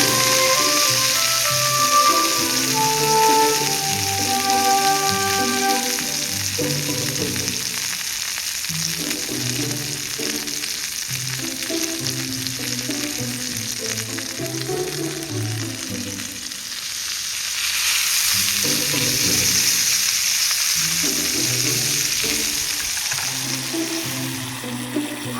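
Pork-wrapped rice balls frying in a pan with a steady sizzle that swells for a few seconds past the middle, over background music.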